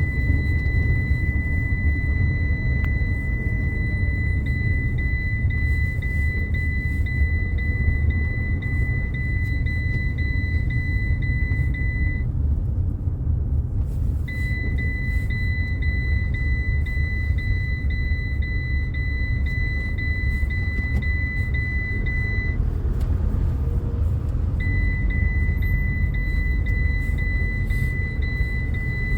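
Citroen Jumper van's seat-belt warning alarm sounding as a steady high tone, signalling an unbuckled belt. It cuts out for about two seconds around the middle and again about three quarters of the way through. Under it the van's engine keeps up a loud low rumble.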